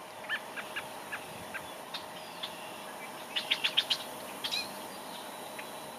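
Small birds chirping: scattered single chirps in the first couple of seconds, then a quick run of about five high notes around the middle.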